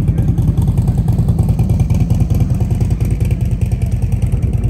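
A motorcycle engine running steadily at low revs, a loud, rapid low-pitched pulsing that holds even without rising or falling.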